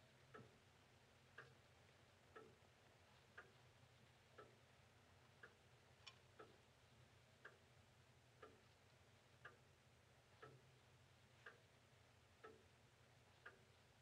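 Faint, slow clock ticking, about one tick a second, alternating a sharper higher tick with a duller lower tock, over a low steady hum.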